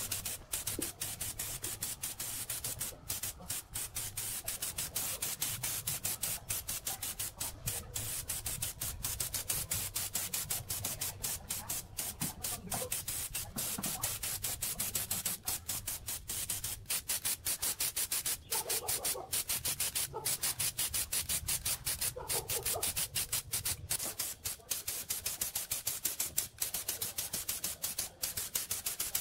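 Gravity-feed compressed-air paint spray gun hissing as it sprays paint, the hiss broken by many brief gaps.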